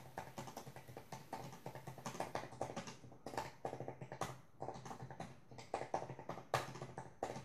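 Typing on a 2017 15-inch MacBook Pro's butterfly-switch keyboard: faint, quick, uneven runs of key clicks, several a second, broken by short pauses.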